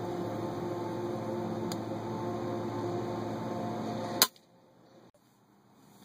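A single shot from an FX Impact Mk1 .177 PCP air rifle about four seconds in: one sharp crack. Before it there is a steady hum, which cuts off suddenly right after the shot.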